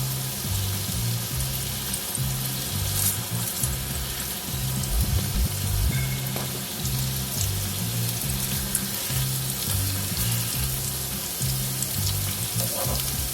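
Ground-beef hamburger patties sizzling as they fry in a little oil in a pan. Background music with a low, stepping bass line plays underneath.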